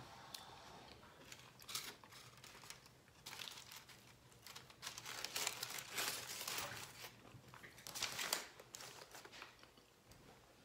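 Aluminium foil wrapper of a burrito crinkling and rustling on and off as it is handled.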